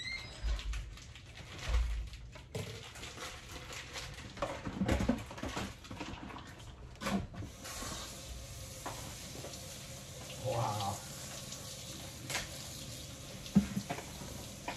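Kitchen faucet running into a stainless sink, switched on about halfway through and splashing into a colander of meat being rinsed. Before and around it come plastic bag rustling and scattered clinks and knocks of dishes going into a dishwasher.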